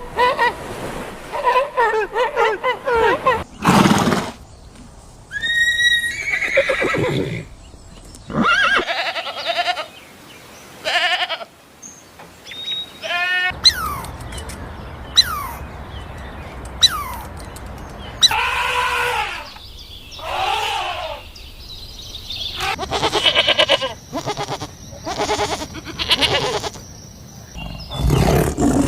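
A run of farm animal calls from several different animals, one short clip after another, with abrupt cuts between them.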